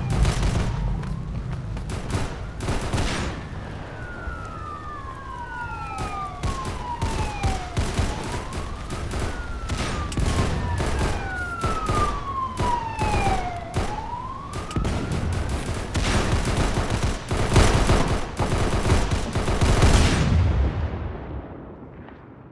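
Rapid gunfire, many shots in quick succession, with police sirens wailing over it. The sound fades out near the end.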